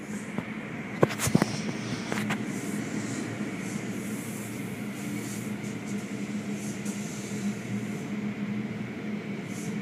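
Automatic tunnel car wash heard from inside the car: a steady machine hum and water spray on the car, with a few sharp knocks about a second in.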